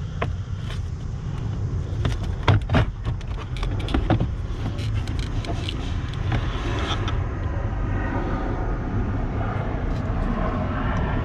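Sharp plastic clicks and knocks, clustered in the first few seconds, as the Ford Expedition's glove box and interior trim are handled to reach the cabin air filter. Under them is a steady low rumble.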